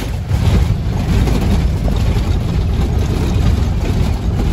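A motor vehicle on the move, a steady low rumble of engine and road noise.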